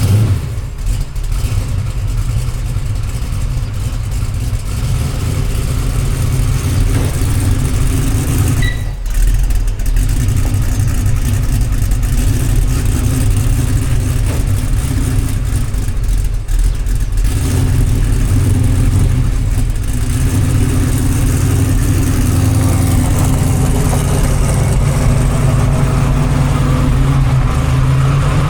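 Chevrolet 454 big-block V8 idling through a custom stainless exhaust with Flowmaster Flow FX glass-pack-style mufflers, still not warmed up. It is fairly tame for a big block, and it gets somewhat louder about halfway through.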